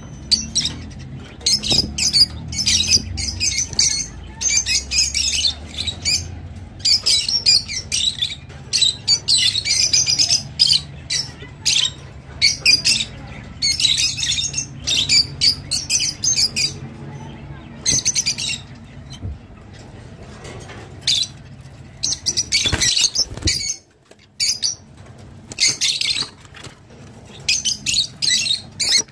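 Peach-faced lovebirds chattering: rapid runs of short, shrill chirps and squawks, broken by a few brief pauses, over a faint low hum.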